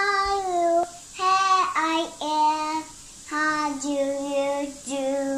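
A two-and-a-half-year-old girl singing a tune in four or five short phrases of long held notes, with brief breaths between them.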